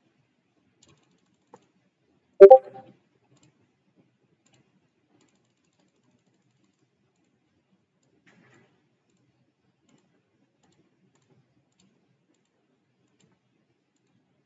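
A computer keyboard clacking once, a short loud clatter about two and a half seconds in, with a faint tick just before it and a few faint ticks later.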